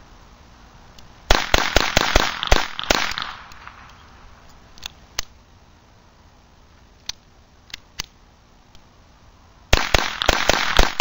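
Beretta 21A pistol firing .22 Long Rifle rounds in two quick strings of sharp shots, about seven in the first string starting about a second in and another string starting near the end. A few lighter single clicks fall between the strings.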